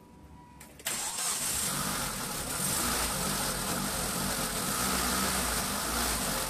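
Turbocharged Mitsubishi 4G93 four-cylinder engine starting suddenly about a second in, then idling steadily. It runs on 800cc injectors that its ECU has not been tuned for, way too much for the stock setup.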